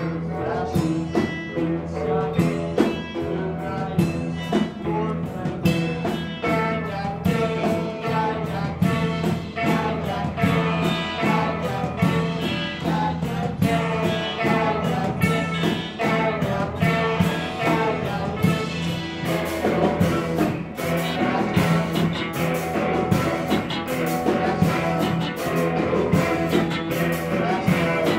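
A rock band playing live in a train tunnel: guitars and a steady bass line over drums, with some singing. About two-thirds of the way through, the cymbals come in brighter and fuller.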